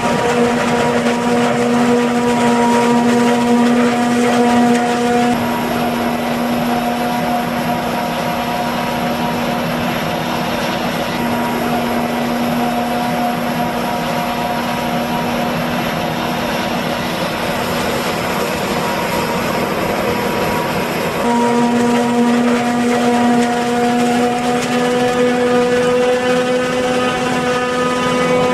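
Claas Jaguar 950 forage harvester running under load while chopping maize: a steady machine drone with a strong held pitched tone. The sound shifts abruptly about five seconds in and again about twenty-one seconds in.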